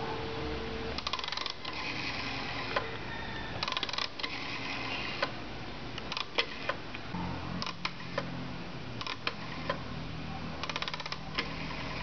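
Rotary telephone dial being wound round and let go, spinning back with a run of rapid clicks each time, several times over, with single clicks from fingers on the dial in between. A steady tone, the dial tone from the lifted handset, stops about a second in as the first digit is dialed.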